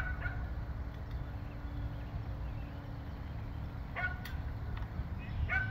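A few short metallic clinks from the boat trailer's safety chain and hook being handled at the bow, about a second in, around four seconds in and near the end, over a low steady rumble.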